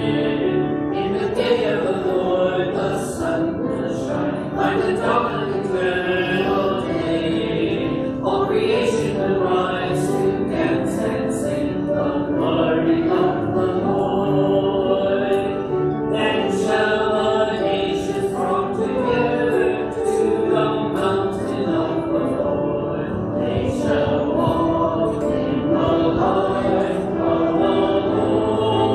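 A church congregation and choir singing the closing hymn of the Mass, with sustained sung phrases throughout.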